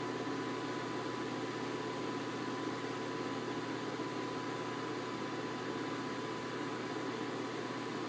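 Vintage 1990s Nautilus ceiling exhaust fan running steadily: a constant rush of air with a thin, steady high tone over it.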